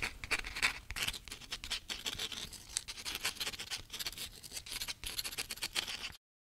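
A fast, irregular run of scratchy clicks and scrapes, like a pen scratching across paper. It goes with the handwritten-style intro text and stops dead about six seconds in.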